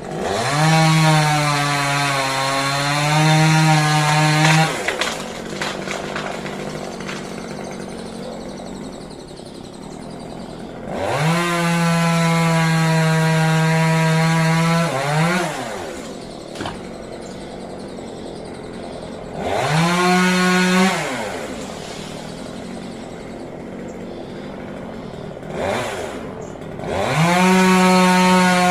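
Two-stroke chainsaw cutting rambutan wood. It revs to full speed in long bursts of a few seconds each and drops back to idle between them, with a short blip of throttle near the end.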